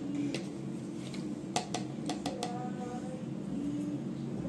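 A few light, separate clicks and clinks of a teaspoon against a bowl as turmeric powder is added to a marinade, over faint steady low background tones.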